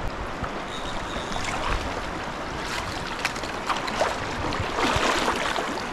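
Shallow stream water running and burbling steadily around wading legs, with several brief splashes as a hooked brook trout is brought to the net.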